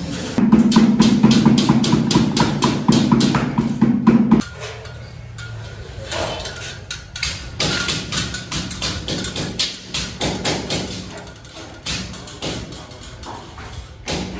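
A steady hum with rapid clicks for about the first four seconds, cutting off suddenly, then irregular knocks and taps of metal ceiling-frame channels being handled and fitted.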